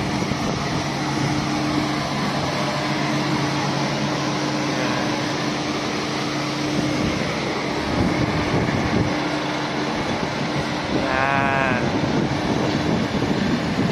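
Yanmar combine harvester's diesel engine running steadily with a constant hum as the tracked machine drives up a ramp onto a truck bed, getting a little louder about eight seconds in. A short call with a bending pitch sounds about eleven seconds in.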